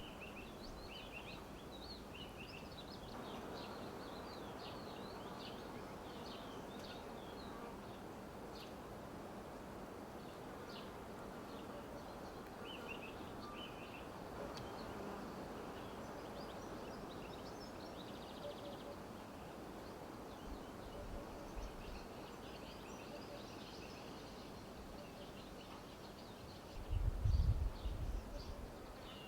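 Outdoor countryside ambience: small birds chirping over a steady hum of buzzing insects, with a few low thumps near the end.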